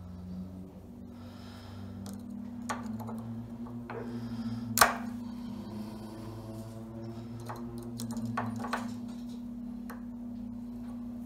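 Small metal clicks of snap-ring pliers and a steel snap ring being squeezed into the groove of a U-joint bearing cap, with one sharp click about five seconds in, over a steady low hum.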